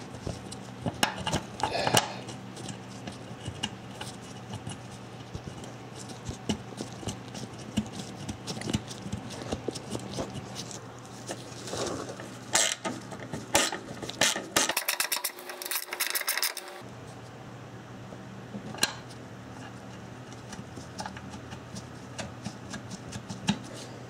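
Socket wrench on an extension threading in splash-shield bolts: scattered metallic clicks and clinks of the socket and bolt, with a quick even run of ratchet clicks about two thirds of the way through.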